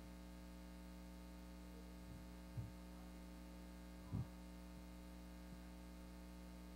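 Steady electrical mains hum in the microphone and sound system, low in level. Two faint, brief low sounds come through, about two and a half and four seconds in.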